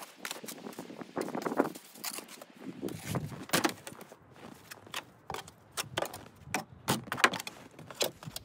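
Footsteps crunching in deep snow: uneven steps and knocks, with a longer scuffing crunch about a second in.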